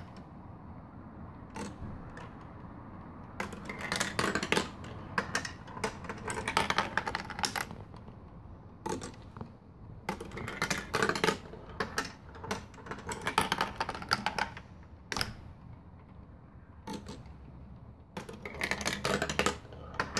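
Hand-cranked LEGO marble run clattering: repeated bursts of rapid plastic clicking and rattling, each lasting a second or so, with quieter gaps between.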